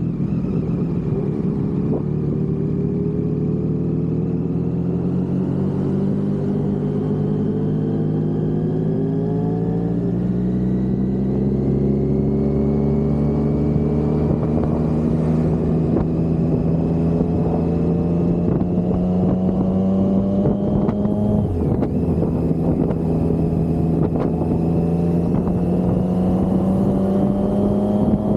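Big-bike motorcycle engine running on the road, its pitch climbing slowly as it gathers speed. About two-thirds of the way through it changes gear, the pitch drops suddenly, and then it climbs again.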